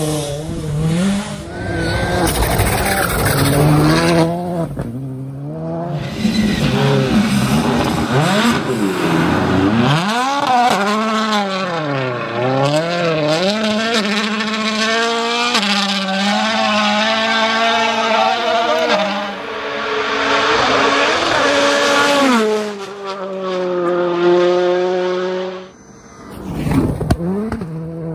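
Rally cars driven flat out past the roadside, one after another. Their engines rev high and drop again through gear changes, with tyre and grit noise. Near the end a car passes close in a short loud burst.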